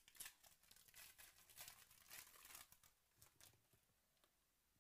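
Faint crinkling and tearing of a foil trading-card pack wrapper being ripped open by hand, a quick run of crackles and rustles that stops about three and a half seconds in.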